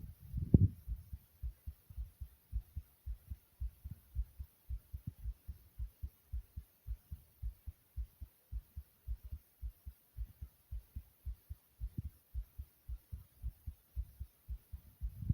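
A human heartbeat beating fast: a steady, rapid run of short, low, muffled thumps, with a louder muffled bump about half a second in.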